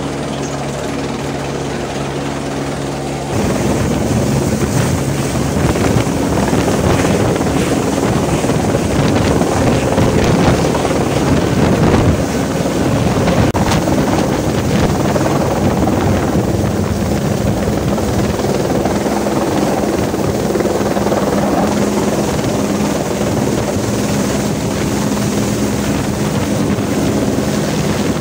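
Rescue helicopter hovering overhead, its rotor and turbine giving a steady loud roar with wind buffeting the microphone. It grows louder about three seconds in, and a steady low hum joins past the middle.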